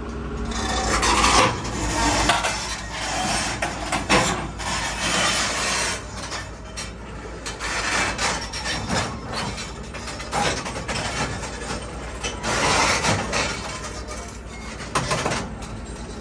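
Doosan DX225LCA crawler excavator climbing steel loading ramps onto a lowboy trailer: its steel tracks clank and grind over the ramps in an irregular run of knocks and scraping, with the diesel engine running under load. Very loud throughout.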